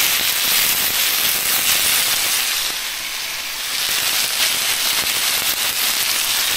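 Chicken pieces frying in a hot nonstick pan, a steady sizzle with dense crackling as barbecue sauce is brushed onto them.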